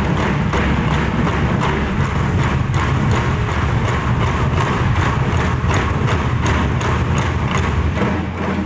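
A large ensemble of barrel drums on stands, struck with sticks in a fast, steady, driving beat.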